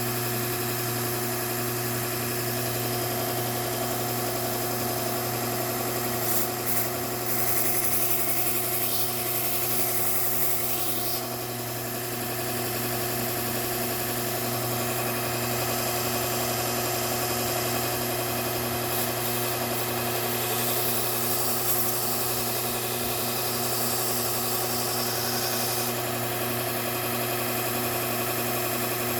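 Bucktool slow-speed belt grinder running steadily with a Trizact A30 abrasive belt, a constant hum with a high hiss. The hiss grows brighter for a few seconds at times as the scissor blades are ground on the belt.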